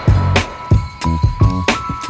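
Background music with a steady beat of bass-drum thumps and sharp snare hits over a low bass line.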